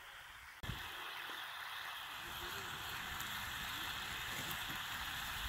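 Bacon sizzling in a frying pan: a steady hiss that starts abruptly about half a second in.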